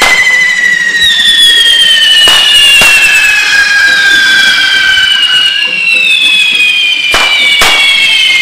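Handheld spark-spraying fireworks (carretilles) carried on devils' poles, hissing and whistling loudly, several at once, each whistle slowly falling in pitch. Sharp firecracker bangs cut in at the start, twice about two and a half seconds in, and twice near the end.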